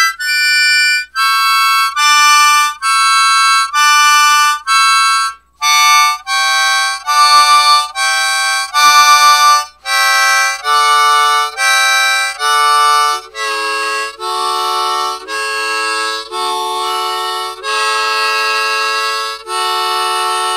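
Hohner Special 20 diatonic harmonica in the key of D, played into a Shure SM58 dynamic microphone. It plays a run of single notes one after another, each about half a second to a second long. The notes stay high for the first few seconds, then step down the scale to lower notes.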